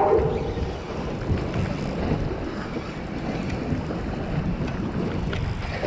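Steady wind buffeting the microphone, over the wash of choppy water.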